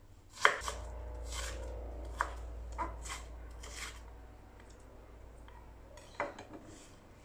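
Chef's knife chopping red onion on a wooden cutting board: a handful of separate knife strikes in the first four seconds, then a short cluster of taps about six seconds in.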